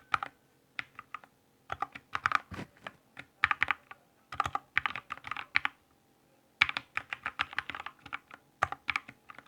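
Typing on a Keychron K6 mechanical keyboard fitted with Gateron Red linear switches: quick runs of soft key clicks broken by short pauses, with a longer pause at about the middle. The red switches are much quieter than the clicky blue switches they replaced.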